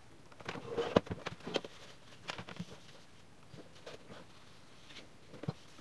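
Scattered light knocks, clicks and rustling as the opened plastic housing of a Krups Nespresso coffee machine is handled and stood upright, and leaked water is wiped up with a cloth. The sharpest click comes about a second in.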